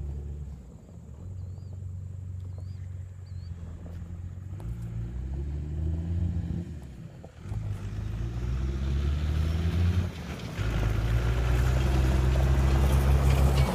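1994 Dodge Ram's 5.9-litre 12-valve Cummins inline-six turbodiesel pulling the truck along: the engine rises in pitch and drops back about three times, then holds a steady higher note. It grows louder over the last few seconds.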